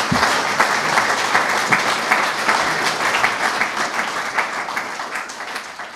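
Audience applauding: many hands clapping at once, dying away over the last couple of seconds.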